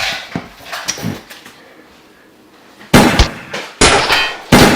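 A few faint knocks, then three loud bangs about a second apart in the second half, each with a short ringing tail.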